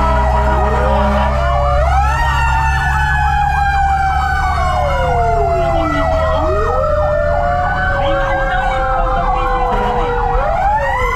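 Fire truck sirens going, several at once: slow wails rising and falling, with a fast warbling yelp over them. Under them is the steady low rumble of the truck's engine and the road, heard from inside the moving cab.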